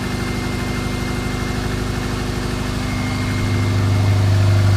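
2002 Subaru Forester's 2.5-litre flat-four idling steadily, freshly rebuilt with new head gaskets, timing belt and water pump, shortly after its first start. A low hum in the engine note grows louder about three and a half seconds in.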